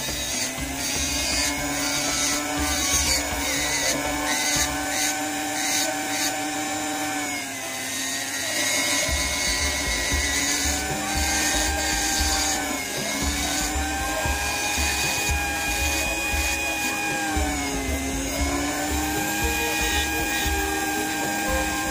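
A small electric power tool's motor running steadily, its pitch sagging and recovering three times as it is loaded, over background music with a steady beat.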